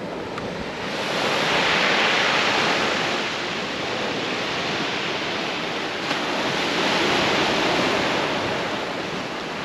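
Sea waves breaking and washing up a pebble beach, a steady surf that swells twice.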